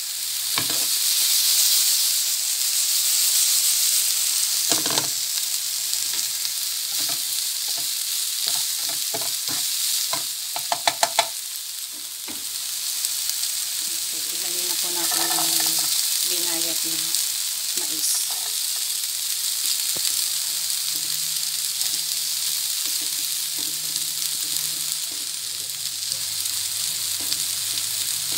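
Diced onion sizzling in hot oil in a nonstick frying pan, with a utensil stirring and scraping it around the pan. About eleven seconds in comes a quick run of sharp taps on the pan.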